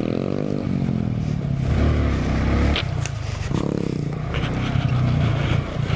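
Single-cylinder mini motorcycle engine revving up and down under hard riding on a bumpy dirt trail, its pitch dropping briefly about three seconds in before climbing again, with rattles and clatter from the bike over the rough ground.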